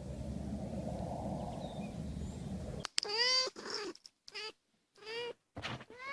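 Steady low noise, then about halfway through a domestic cat starts meowing, a quick string of about five short meows.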